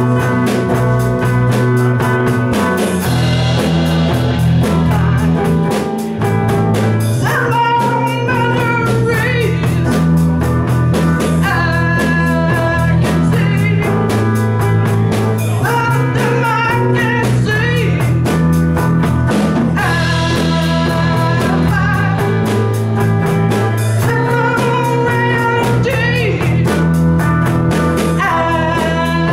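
Live psychedelic rock band playing: electric guitar, bass and drums under a steady beat, with sung vocal lines coming in every few seconds.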